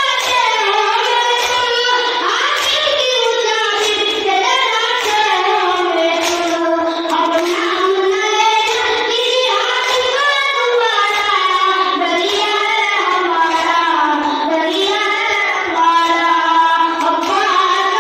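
A boy singing a noha, a Shia mourning lament, in a high voice into a microphone, with the melody bending and gliding through long held lines. Chest-beating (matam) hand strikes can be heard faintly beneath the voice.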